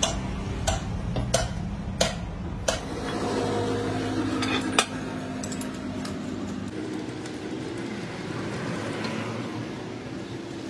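Sharp metallic clanks, about one every two-thirds of a second for the first five seconds, as metal parts are knocked together while a motorcycle wheel hub is set up on a lathe. Under them a machine motor hums steadily.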